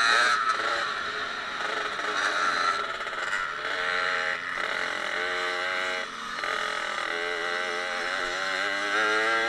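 Suzuki RM65 two-stroke dirt bike engine revving up and falling back again and again under throttle as the bike rides the track, with a short drop about six seconds in. Steady wind rush on the helmet-camera microphone runs underneath.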